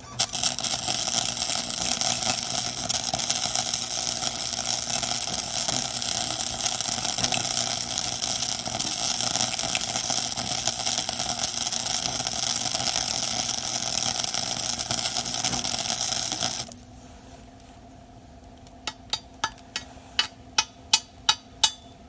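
Wire-feed (MIG) welder arc crackling and hissing steadily through one long bead, run at a raised wire speed that the welder still judges too low for the thick metal; it cuts off suddenly. Near the end come about eight sharp separate clicks.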